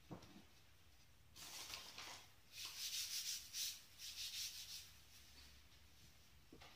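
Floured hands rubbing in quick back-and-forth strokes, a dry scraping that lasts about three seconds, with a soft thump at the very start as a hand presses the dough ball.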